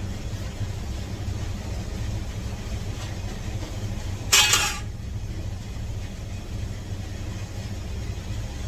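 A steady low hum, with one short splashing hiss about four seconds in as the washed rice goes into the pot.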